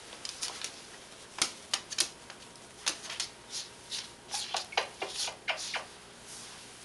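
A cockatoo's claws clicking and tapping on a hard floor as it walks: a run of sharp, irregular clicks that starts about a second and a half in and stops near the end.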